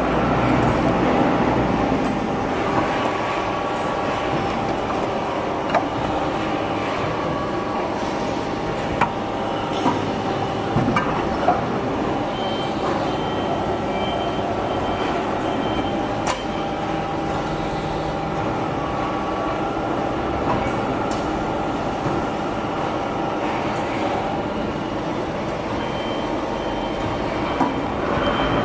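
55-ton vertical dental floss moulding machine and other factory machinery running: a steady mechanical hum with faint whining tones and occasional sharp clicks.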